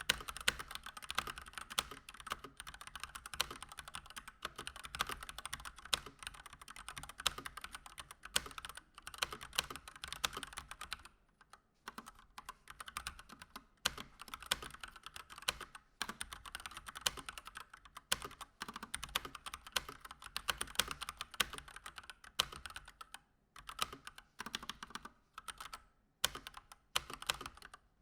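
Continuous fast typing on a Keychron C1 mechanical keyboard with stock Gateron Red linear switches, a dense clatter of keystrokes with short pauses about eleven and twenty-three seconds in.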